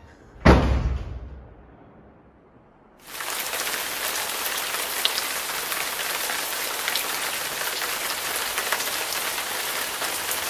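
One heavy thump about half a second in, dying away over about a second. About three seconds in, a steady hiss of rain starts abruptly, with scattered small drop ticks.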